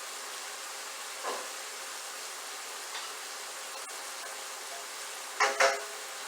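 Chicken pieces sizzling steadily in a hot stir-fry pan as they brown. A soft knock comes about a second in, and two quick metallic clinks with a short ring come near the end.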